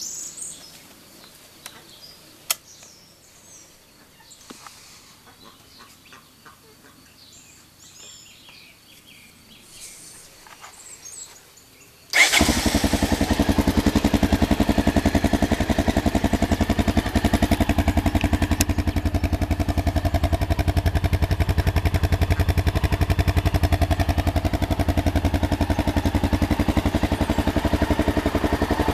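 A 1988 Honda NX650 Dominator's single-cylinder four-stroke engine on its stock exhaust, which starts abruptly about twelve seconds in and then idles steadily. Before it starts there are only faint bird chirps and a few clicks.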